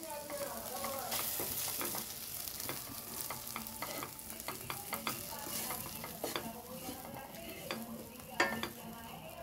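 Stirring and scraping in a pan of sizzling ingredients, irregular small scrapes and clicks over a steady sizzle, as sesame and peanut powder is mixed into the frying tempering. A louder knock comes near the end.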